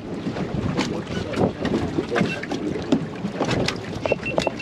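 Wind and sea noise on a fishing boat offshore, with scattered knocks and clatter of gear on deck and faint voices. A quick run of short, high, evenly spaced tones sounds near the end.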